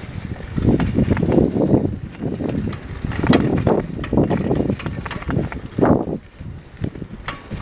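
Wind buffeting the microphone in irregular gusts during a bicycle ride over rough field ground, with scattered sharp clicks.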